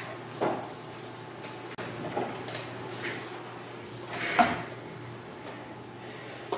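A few short knocks and clatters from children handling their computer desks and pull-out keyboard trays. The loudest comes about four and a half seconds in, over a steady low hum.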